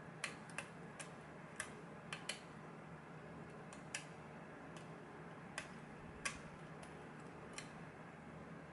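Small metallic clicks of a lock pick and tension wrench working the pins of a pin-tumbler lock, about a dozen irregular clicks with pauses between them. These are the clicks a picker feels and hears as pins set, and the sharpest comes about six seconds in.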